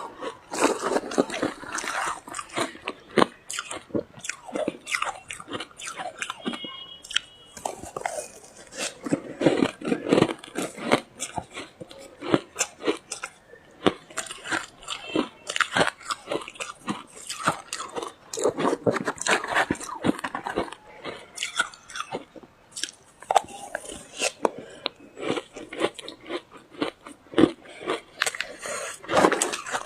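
Ice being bitten, crunched and chewed: a dense, irregular run of sharp cracks and crunches with short pauses between bites.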